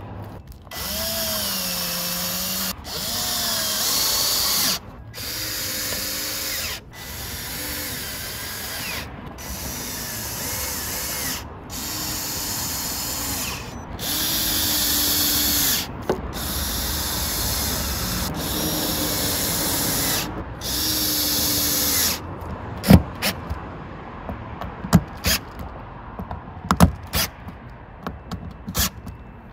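Cordless drill-driver driving screws through a plastic roof-vent flange into an RV roof, in about ten short runs, its motor whine dipping and bending as each screw pulls down. Each screw is stopped as it starts to seat so as not to split the plastic. After that come a few sharp clicks and knocks.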